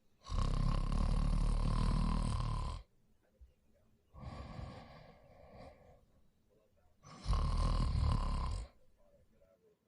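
A person snoring in their sleep. There are two loud, rattling snores, the first about two and a half seconds long and the second about a second and a half, with a softer breath between them.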